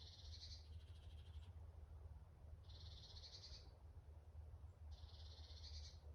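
Faint forest ambience with an animal's high, rapid buzzing trill, about a second long, repeated three times roughly two seconds apart, over a steady low rumble.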